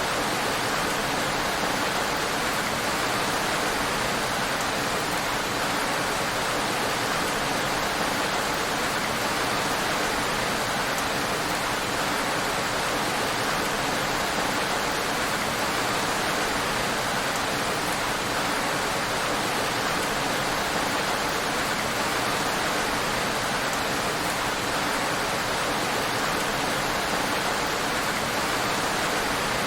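Heavy rain falling on a road: a steady, dense hiss with no single drops standing out and no change in strength.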